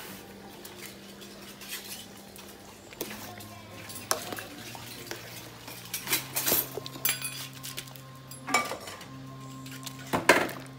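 A metal spoon clinking and scraping against a metal cooking pot while rice is stirred into the broth, with a series of sharp clinks. The loudest clink comes near the end.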